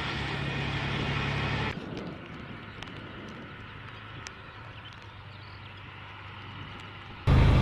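Heavy missile-launcher truck's diesel engine running steadily, loud and close. After about two seconds the sound drops suddenly to a faint, distant rumble with a few light clicks, and just before the end the loud engine drone cuts back in.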